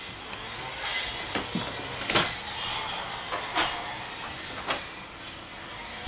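Interior door of a travel trailer being opened: a few sharp clicks and knocks from the knob, latch and door, the loudest about two seconds in, over a steady hiss.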